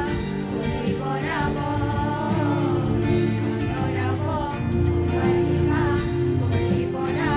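A group of singers performing a song together, accompanied by acoustic guitar and keyboard.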